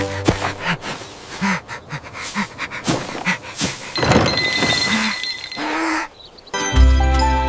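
Cartoon sound effects: a string of short animal-like calls mixed with clicks and knocks, with a longer rush of noise in the middle. Music comes in near the end after a brief drop.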